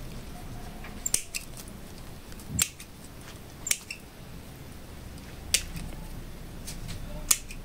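Small pruning scissors snipping thin bonsai shoots: about six sharp clicks at irregular intervals.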